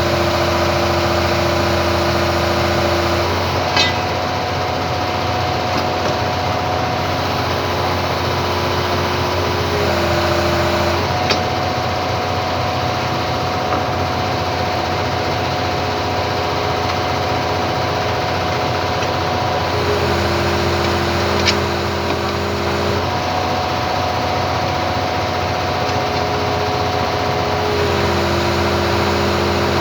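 Hitachi excavator's diesel engine running steadily. Its whining tone switches between two pitches every few seconds, as the load on the machine changes. Three brief sharp clicks stand out over it.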